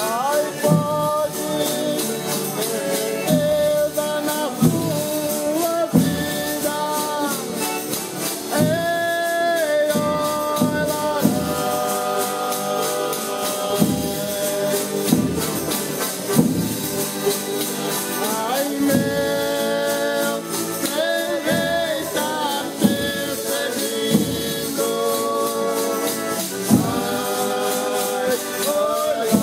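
A Folia de Reis company singing a toada together in several voices, accompanied by a shaken tambourine.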